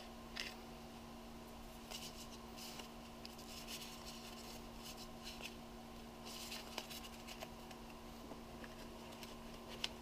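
Paper instruction sheets and snapshots handled and shuffled by hand: soft, intermittent rustles with a few light clicks, over a steady low hum.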